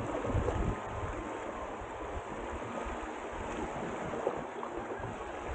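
Water rushing along the hulls of a Hobie Tiger F18 beach catamaran under sail, heard as a steady hiss, with wind buffeting the microphone in low rumbles in the first half-second.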